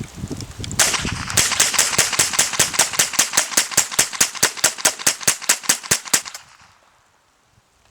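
Rapid semi-automatic fire from a Ruger .22 LR rifle: about two dozen sharp shots at roughly five a second, emptying a 25-round BX-25 magazine. The shots stop about six seconds in.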